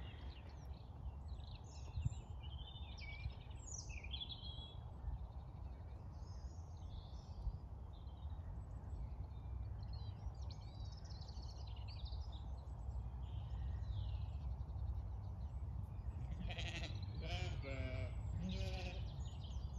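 Zwartbles sheep bleating, a few wavering calls close together near the end. Small birds chirp in the first half over a steady low rumble.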